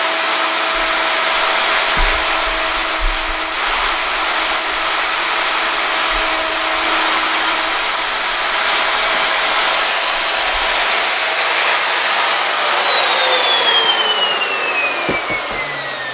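Electric plunge router with a straight bit and guide bushing running and cutting a shallow hinge mortise in wood through a template. About three-quarters through it is switched off, and its whine falls steadily in pitch as the motor winds down.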